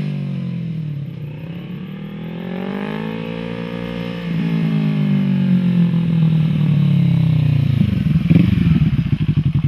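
Kawasaki ER-6n's parallel-twin engine through a LeoVince aftermarket exhaust with the dB killer removed, a loud open exhaust note. The pitch falls, rises as the bike accelerates, drops sharply about four seconds in, then holds steady. Near the end it settles to an idle with distinct separate exhaust pulses.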